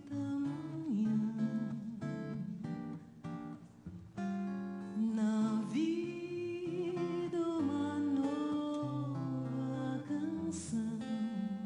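A woman sings a slow song into a microphone, holding long notes with vibrato, over fingerpicked acoustic guitar. The music softens briefly a few seconds in, then comes back fuller.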